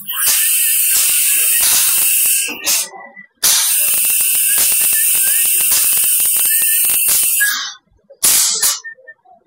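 Aluminium profile machining center at work: two long bursts of loud hissing with a steady high whine and crackling through it, the first about two seconds long and the second about four, followed by short bursts near the end.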